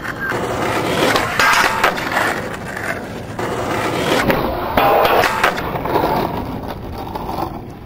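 Skateboard wheels rolling on rough asphalt, broken by several sharp clacks of the board and trucks landing and striking during street tricks at a rail.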